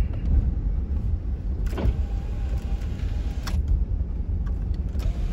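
Car driving slowly, heard from inside the cabin: a steady low rumble of engine and road. A couple of light knocks come about two seconds in and again a second and a half later.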